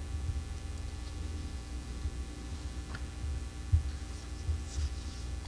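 Low steady hum of room tone, with a few faint clicks and a short soft thump a little before four seconds in.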